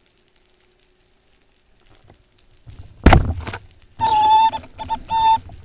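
Speargun fired underwater: one sharp, loud thunk about three seconds in. Near the end a high whine with many overtones starts, coming in short spurts.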